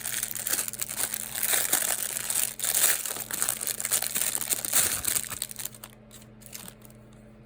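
Wrapping of a crochet-hook package crinkling and rustling as it is pulled open by hand, a busy crackle of small clicks that dies away after about five and a half seconds.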